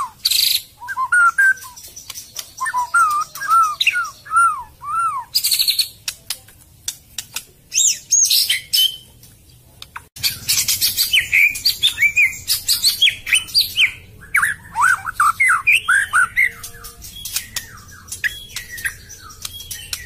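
Songbird song: a string of clear, arched whistled notes repeated in runs, mixed with sharp high notes and clicks. About ten seconds in the recording changes to a noisier one, where the notes come faster and more densely.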